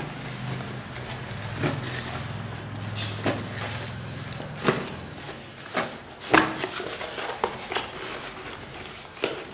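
Shipping package being opened by hand: irregular rustles, scrapes and sharp clicks of the packing material, the loudest snap about six seconds in, over a low steady hum.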